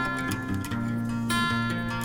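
Background music: acoustic guitar strumming chords that change about every half second.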